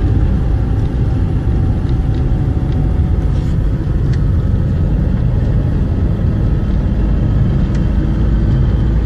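Steady low rumble of road and engine noise inside a moving car at highway speed.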